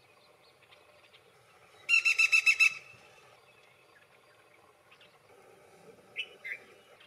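Black-rumped flameback woodpecker giving its rattling call: a quick burst of about eight loud notes lasting under a second, about two seconds in. Two shorter call notes follow near the end.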